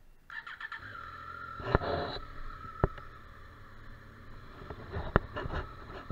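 Triumph Street Triple RS 765 three-cylinder engine starting: a brief crank, the engine catches about a second in, a short rise in revs near two seconds, then it settles to idle. Several sharp clicks sound over the idle.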